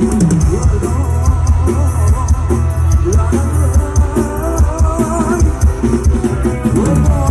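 Live band music from a Thai rot hae sound truck's big speaker system: a sung melody over a heavy, dense bass and a steady drum beat with an even cymbal tick.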